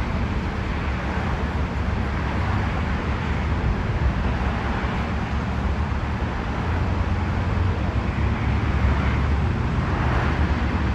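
Rumble of an approaching J subway train on the elevated line, steady and slowly growing louder, with wind buffeting the microphone.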